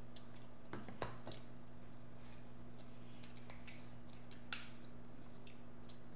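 King crab leg shells being cracked and picked apart by hand: scattered small clicks and cracks, with a sharper snap about four and a half seconds in.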